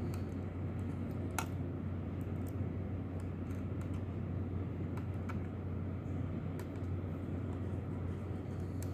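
Light, scattered clicks and taps of small metal and plastic parts being handled as the M.2 SSD's retaining screw is fitted in a computer module, over a steady low hum.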